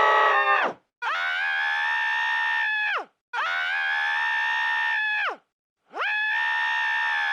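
Sniffles' scream from the cartoon, pitched down and played again and again. One scream ends about half a second in, then come three long held screams of about two seconds each, with short gaps between them. Each scream slides down in pitch as it cuts off.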